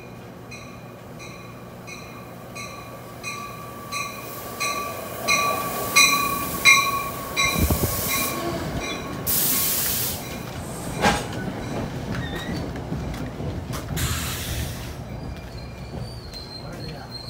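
NJ Transit Comet commuter train pulling into the station with its bell ringing about one and a half strikes a second, growing louder as it arrives. Then come two loud bursts of air hiss, a knock, and a high squeal near the end as it slows to a stop.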